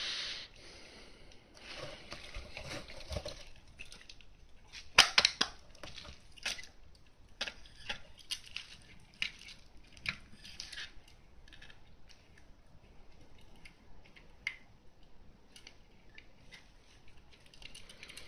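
Canon VI-L rangefinder camera handled with its back open: a series of sharp metallic clicks and clacks from its controls and body, the loudest pair about five seconds in.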